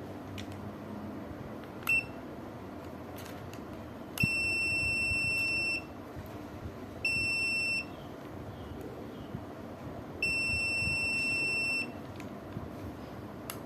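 Aneng 681 digital multimeter's buzzer beeping with one steady high tone: a short beep, then three longer beeps of one to two seconds each. This is the held beep of a continuity test sounding while the probes are touched together.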